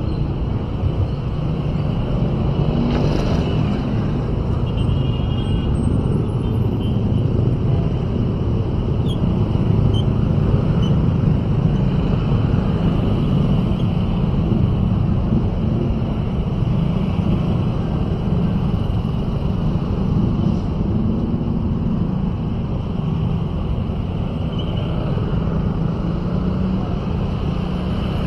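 Steady rumble of a motorcycle engine and road noise heard from the rider's seat, riding among other motorcycles and cars in street traffic.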